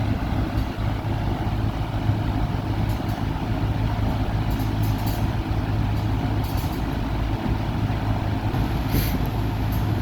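1960s Lasko model 4735 two-speed box fan running steadily on high: a rush of moving air over a low motor hum.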